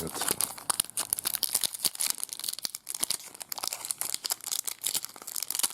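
Trading card pack wrapper crinkling and tearing as it is opened: a run of quick, sharp crackles and rustles.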